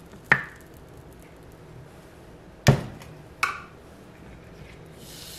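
Three sharp clacks as a plastic measuring cup knocks against a mini waffle maker while thick waffle batter is pushed into it, the second clack the loudest. Near the end a steady hiss starts as the batter sizzles on the hot plates.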